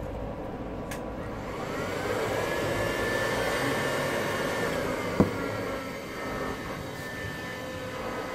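Hot air rework station blowing steadily on a phone board to desolder the charging port, with a faint whine that rises in pitch about a second and a half in. A single sharp click about five seconds in.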